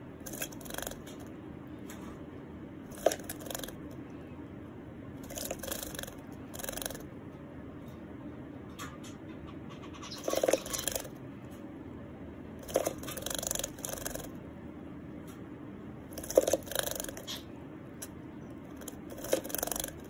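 A white Java sparrow bathing in a small plastic bird bath, splashing the water with quick fluttering bursts. The bursts come every few seconds, each lasting up to about a second.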